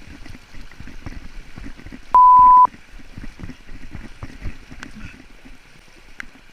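A loud, steady electronic beep about half a second long, two seconds in, over running river water and irregular low thumps.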